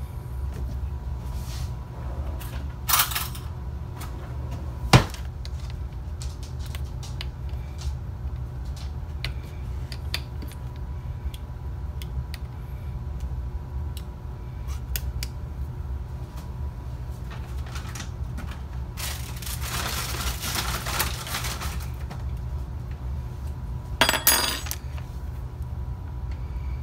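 A new plastic ketchup squeeze bottle being opened by hand: scattered clicks and a sharp snap about five seconds in, then a rustle lasting about three seconds past the middle and a short scratchy burst near the end. A steady low hum runs underneath.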